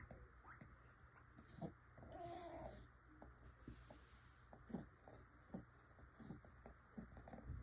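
A sick kitten's faint, crackling breaths, with a short weak mew about two seconds in. The crackle comes with pneumonia and fluid build-up in the chest.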